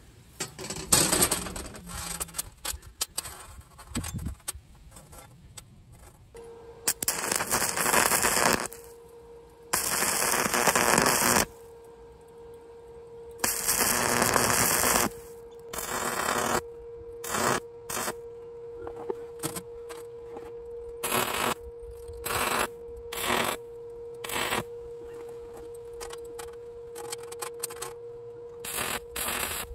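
Stick welder arc crackling and spitting in several welds of one to two seconds each, then a run of short arc strikes as the rod legs are tacked to the rebar body, over a steady hum. In the first seconds, steel plates clatter as they are set on the welding table.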